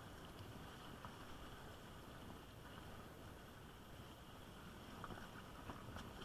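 Steady low rumble of wind buffeting the microphone over the wash of surf, with a few faint ticks near the end.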